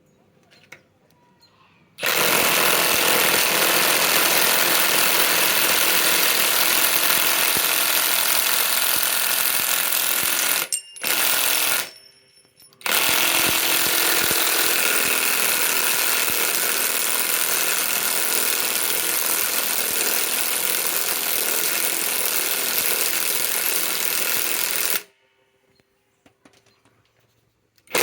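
Two cordless high-torque impact wrenches, a Ridgid and a Bauer brushless, hammering together as they back out 8-inch lag screws. They start about two seconds in, break off briefly twice around eleven and twelve seconds, then run on until they stop near the end.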